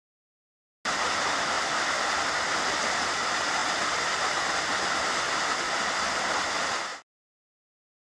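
Waterfall pouring down a rock face into a pool, a steady rush of water. It starts about a second in and cuts off abruptly about a second before the end.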